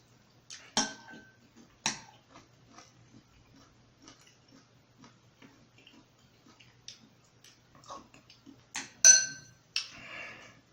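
Close-up chewing and small mouth clicks, with a metal utensil clinking against a dish a few times, the loudest clinks with a short ring near the end.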